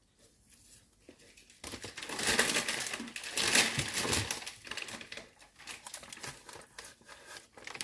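Loud crinkling and crunching close to the microphone, starting about a second and a half in and strongest in the middle, then trailing off into scattered small clicks and crackles.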